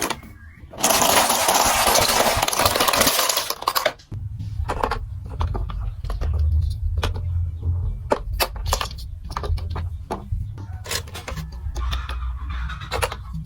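A loud clattering pour for about three seconds. Then marbles roll along a plastic marble-run track with a low rumble and many small clicks as they strike the pieces.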